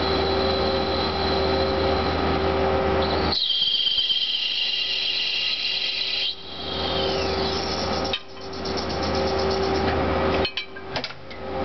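CNC lathe machining SAE 660 bronze: a steady machine hum with a high-pitched cutting whine that comes and goes. The sound changes abruptly several times, as one cutting pass gives way to the next.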